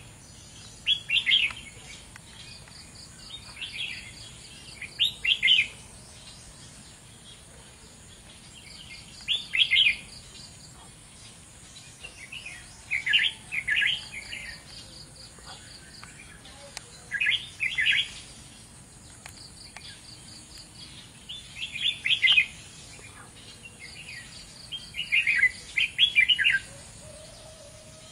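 Red-whiskered bulbul singing: short, loud warbled phrases repeated every few seconds, about ten in all.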